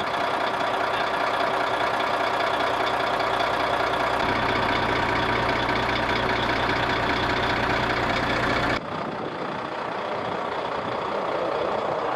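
Heavy truck engine running steadily. About nine seconds in the sound cuts abruptly to a quieter, rougher engine sound.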